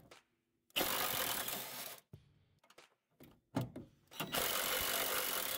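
Impact drill driving a long socket extension, running in two bursts of about a second each: one about a second in, the other just past four seconds. It is loosening the 18 mm bolts on an engine mount.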